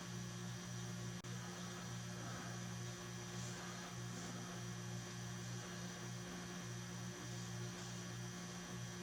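Faint, steady low electrical hum with a light hiss underneath.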